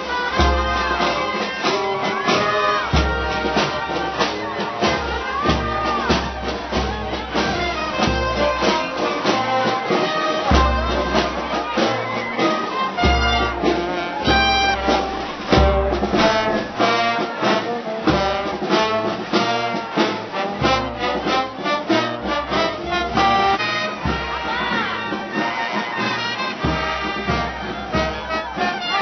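Brass band playing a lively march: trumpets and trombones over a sousaphone bass line, with a steady percussive beat.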